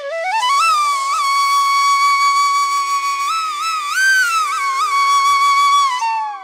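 Background instrumental music: a flute-like melody glides up into a long held note with small bends and ornaments, then slides down near the end, over a faint steady drone.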